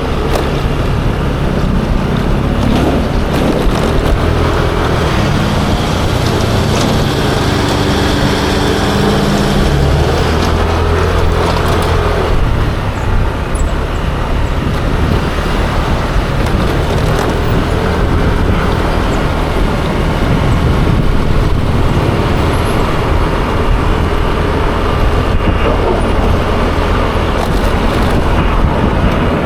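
Yamaha Aerox 155 scooter's single-cylinder engine running on the move, its pitch shifting as it speeds up and slows, under steady wind noise on the microphone and road traffic.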